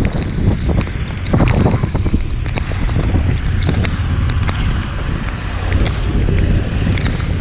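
Wind rushing over the microphone of a motorcycle on the move in the rain, with the engine and tyres on the wet road running underneath. Scattered sharp ticks of raindrops hitting the microphone.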